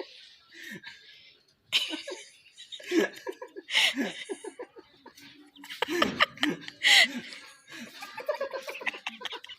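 People laughing in several separate bursts of quick, broken laughter, with a few words mixed in.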